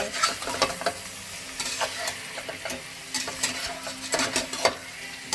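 Chicken sizzling as it fries in a pan while a utensil stirs it, knocking and scraping against the pan in frequent sharp clicks.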